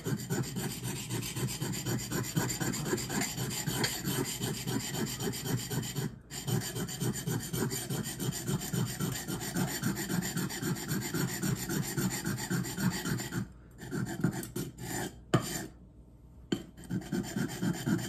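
Steel knife edge (Victorinox Grand Maitre santoku) being ground straight down on a 400-grit super vitrified diamond water stone, making rapid back-and-forth rasping strokes. This is a tip repair, taking the edge down to remove a bent tip. The strokes pause briefly about six seconds in and again a couple of times near the end.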